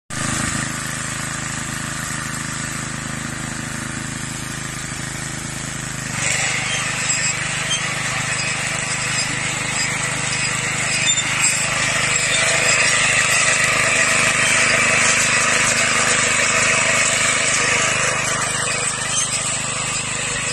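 Small engine of a walk-behind tiller running steadily as it pulls a mulch-film laying machine over a field bed. About six seconds in the sound grows louder and brighter and stays so.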